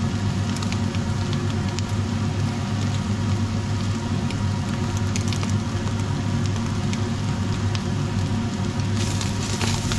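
Ground beef and bacon sizzling in a pot, a steady crackle with scattered small pops over a steady low hum.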